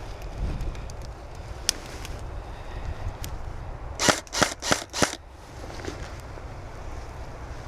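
Airsoft gun shots: scattered single cracks, then four in quick succession about four seconds in, over low wind rumble on the microphone.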